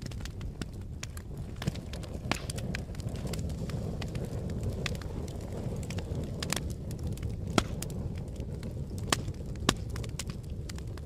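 A fire burning with a steady low rumble and irregular crackling, with a few sharp, louder pops scattered through it.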